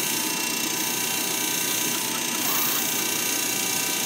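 Steady machine drone from a mechanical bull ride, running without a break and carrying several faint steady whining tones.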